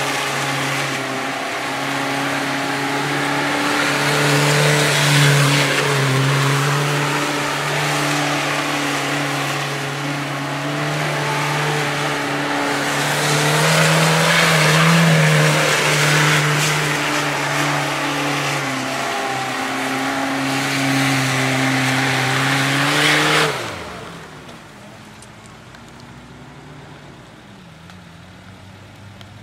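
Small four-wheel-drive's engine held at high revs, tyres spinning in mud as it turns tight donuts. About 23 seconds in the throttle comes off and the engine drops back to a much quieter idle.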